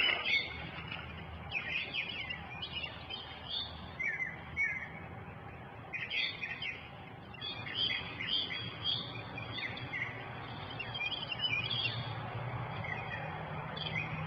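Small birds chirping and singing in short phrases again and again, over a steady low hum.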